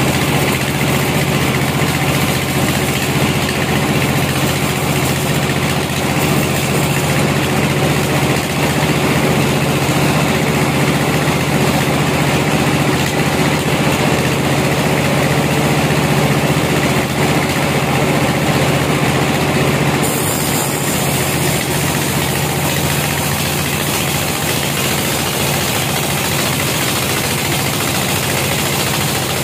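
Band sawmill running with its blade cutting lengthwise through a log: a loud, steady machine drone mixed with the noise of the blade in the wood. The higher part of the sound changes abruptly about twenty seconds in.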